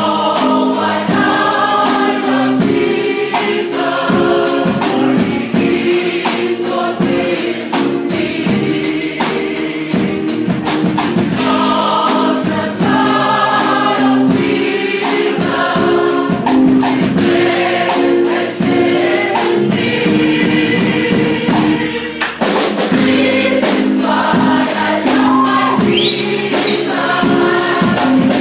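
A choir sings a Christian worship song over band accompaniment with a steady, dense percussive beat.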